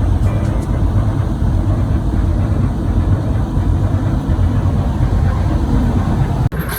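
Large marine diesel engine of a coastal tanker running, a loud steady low rumble that cuts off abruptly near the end.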